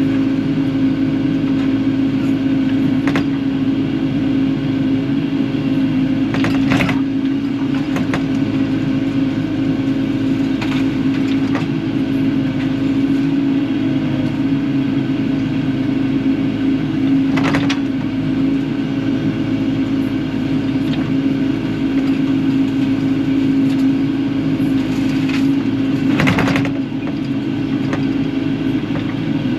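Kubota KX080-4 excavator's diesel engine running steadily under work, with a few sharp knocks and clanks as the machine handles scrap and trash.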